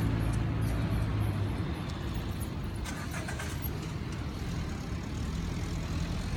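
Road traffic: a motor vehicle's engine running close by, its low hum strongest for the first second or so and then easing off, over the general noise of traffic.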